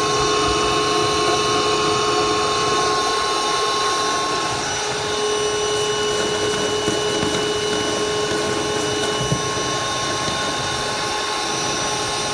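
Milwaukee wet/dry shop vac running steadily with a high whine and rushing hiss, sucking condensate and debris out of a boiler's condensate trap through a hose coupled over the trap's end. One pitch in the whine drops out about four and a half seconds in, and there is a small click near nine seconds.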